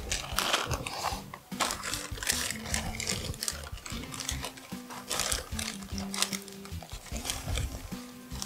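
Plastic bag of confectioners' sugar crinkling and rustling in the hands as it is handled and opened, a run of irregular crackles.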